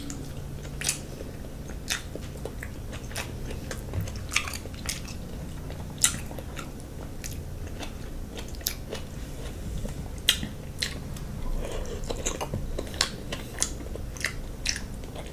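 Close-miked chewing and wet mouth smacking while eating king crab meat, with irregular sharp smacks about every second.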